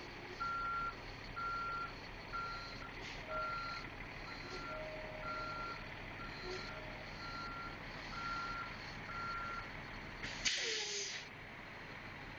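Heavy vehicle's backup alarm beeping about once a second over a running engine, stopping after about ten seconds. A short burst of hissing air follows near the end, an air brake releasing.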